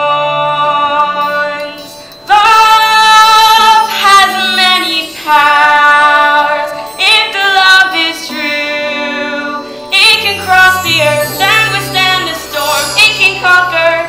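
Young female voices singing a musical-theatre song in long held notes over a musical accompaniment, with the low accompaniment notes growing stronger about ten seconds in.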